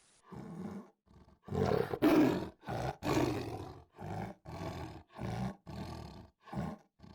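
Lion roaring: a few long, loud roars followed by a run of shorter grunting calls, about one every half second or so, fading toward the end.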